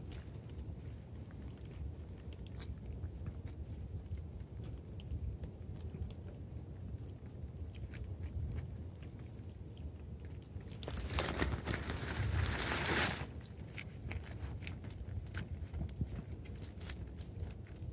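Cats licking and chewing lickable cat-treat paste from a hand-held squeeze tube: a steady run of small, wet licking clicks. A rustling noise lasting about two seconds comes about eleven seconds in.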